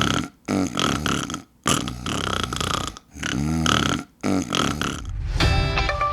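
A person snoring: a series of rough, rattling snores about a second each, with short breaks between them. Music comes in near the end.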